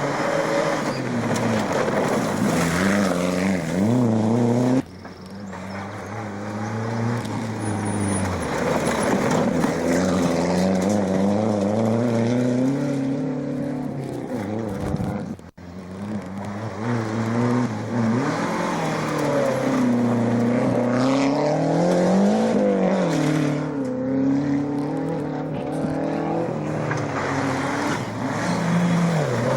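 Rally cars at speed on a special stage, engines revving up and dropping through gear changes as they pass. The sound cuts abruptly twice, about five and fifteen seconds in, between separate cars.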